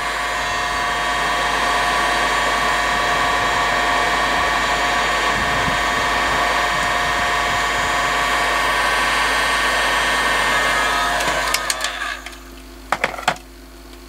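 Electric heat gun running steadily, a fan rush with a steady motor whine, shrinking heat-shrink tubing over a crimped battery cable lug. It is switched off and winds down about twelve seconds in, followed by a few sharp clicks.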